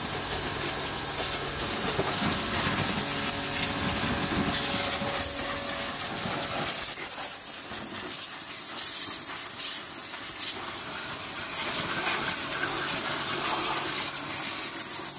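Pressure-washer jet hissing steadily as it sprays water over a car's engine bay, with the washer's pump humming faintly underneath.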